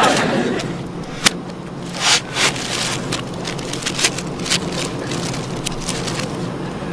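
Scattered sharp clicks and a few short scraping bursts over a steady low hum.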